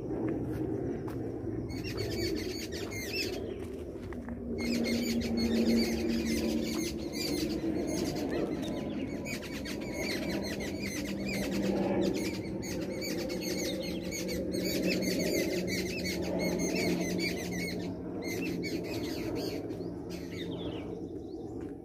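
Many birds chirping and calling together in a dense, busy chorus from about two seconds in until near the end, over a low steady hum.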